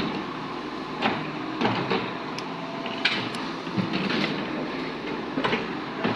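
Construction-site work noise: a steady rumble with irregular knocks and scraping clatter.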